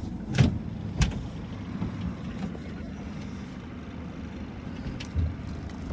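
Boat's outboard motor running at low speed: a steady low hum. Two sharp clicks come about half a second and a second in, and a soft thump near the end.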